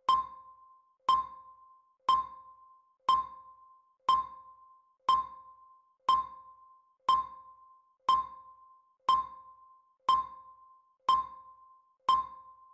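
Countdown timer sound effect: a short pitched ping, once a second, each dying away quickly, ticking off the seconds of the puzzle timer.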